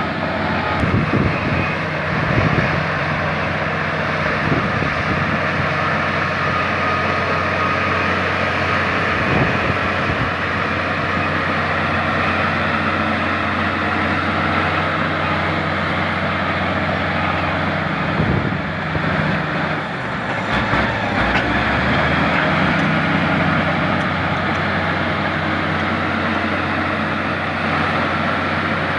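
LiuGong bulldozer's diesel engine running steadily under load while grading, with a few short clanks now and then.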